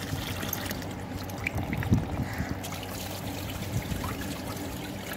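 Water from a hose pouring and trickling into a large steel basin of wheat grain as it is washed, the grain and water stirred by hand, with a louder splash about two seconds in.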